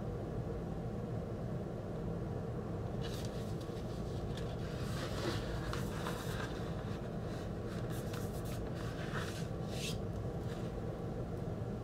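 Cardboard record jacket and paper inner sleeve rustling and scraping in the hands as a vinyl LP is slid out, in irregular bursts from about 3 s in until near the end, over a steady low hum.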